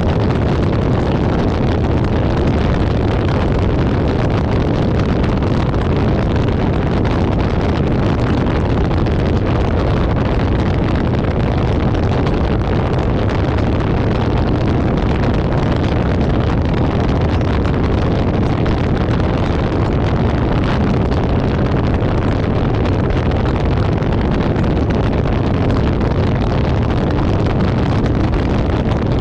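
Steady wind rushing over a microphone mounted on the hood of a moving car, mixed with the car's road and engine noise.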